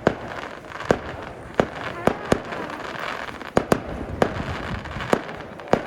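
Fireworks display: aerial shells bursting in a quick, uneven series of about ten sharp bangs, with steady noise between them.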